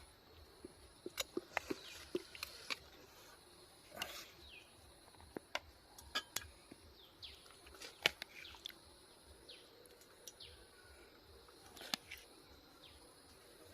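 Faint, scattered clicks and taps, with a few short, high chirps that fall in pitch.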